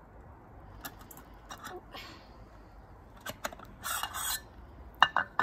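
Metal camping cook pot and its lid clinking and scraping as the pot is lifted off the campfire grill and handled. There is a burst of rattling about four seconds in and a sharp clank of metal near the end.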